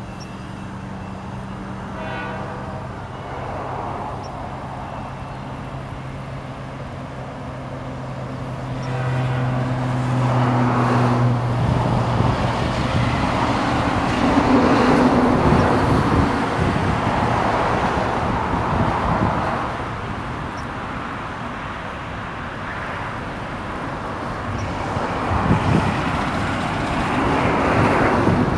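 Union Pacific double-stack container freight train rolling past at a distance. The locomotives' steady low drone lasts for the first dozen seconds or so. Then wheel-on-rail noise from the cars swells, eases off and swells again near the end.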